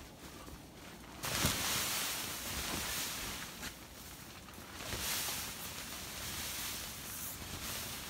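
Blizzard wind gusting against a tent, the fabric hissing and rustling in surges, the strongest starting about a second in and another shortly after the middle.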